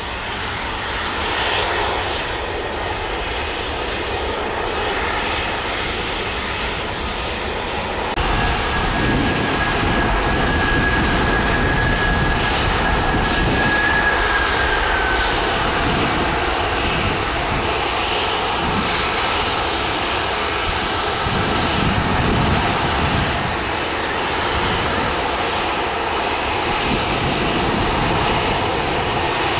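Airliner engines running loud, with a rumble that grows about eight seconds in. A thin high whine holds for several seconds, then dips slightly in pitch.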